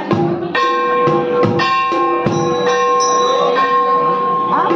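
Instrumental break in a Hindi devotional bhajan: a melody instrument holds long sustained notes over a few drum beats, with no singing.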